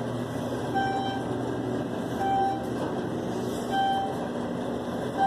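Elevator beeping: a short, clear electronic beep repeats three times, about every second and a half, over a steady ventilation hum.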